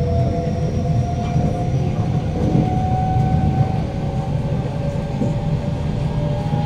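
Kawasaki-CRRC Sifang C151B metro train running, heard inside the carriage: a steady rumble of wheels on the rails with a motor whine that rises slowly in pitch as the train gathers speed.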